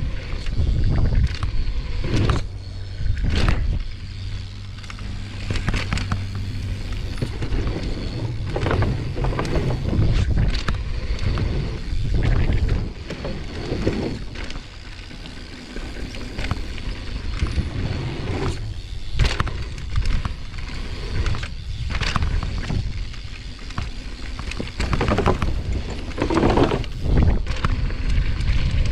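Mountain bike riding fast down a dirt trail, picked up by a GoPro on the rider: a steady rush of wind on the microphone and tyre noise on dirt, broken by frequent knocks and rattles from the bike over bumps.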